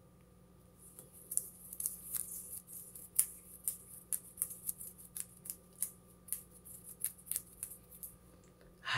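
A run of short, crisp clicks and crackles, roughly two a second, starting about a second in.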